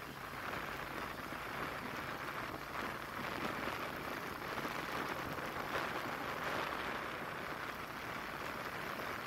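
Steady hiss of road and wind noise from a vehicle driving slowly along a city street.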